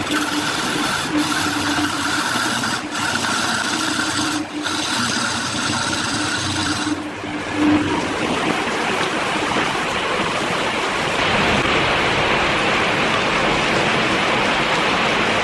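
A woodworking power tool running with a steady motor whine for about seven seconds, then a loud, even hiss of material being worked takes over.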